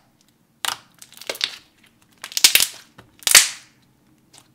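Thick, glossy slime squished and pressed by hand, making crackly clicks and small bubble pops in four spells, loudest in the second half.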